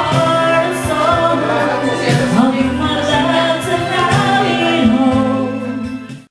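A woman singing karaoke into a microphone over recorded backing music; it cuts off suddenly at the end.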